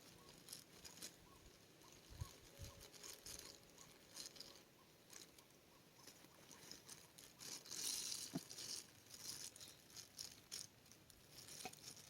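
Near silence with faint, scattered light ticks and rustles.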